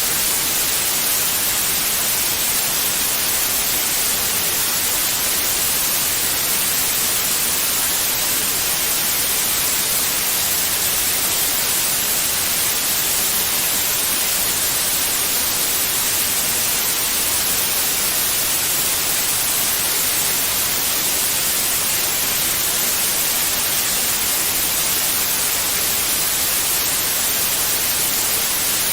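Steady white noise: an even, unchanging hiss, brightest in the high pitches.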